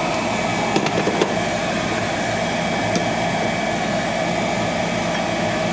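Steady whirring hum of a kitchen fan over a pot of broth simmering on the stove, with a few light clicks about a second in.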